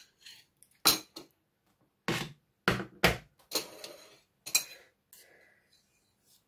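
Metal knife and fork clinking and scraping against ceramic plates, with about six sharp clinks, while a slice of cheesecake is lifted onto a plate.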